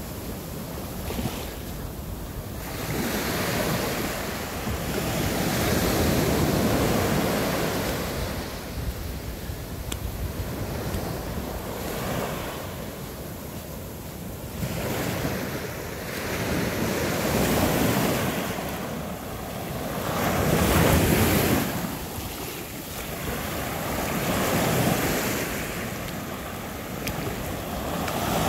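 Ocean surf washing onto the shore of a bay, the rush of each wave swelling and fading about every three to four seconds, with some wind on the microphone.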